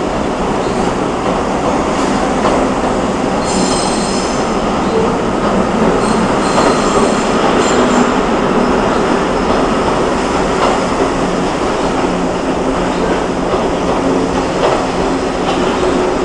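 R44 subway cars pulling out of the station right alongside: a loud, steady rumble of steel wheels on the rails. A high-pitched wheel squeal comes about three and a half seconds in and again around seven seconds in.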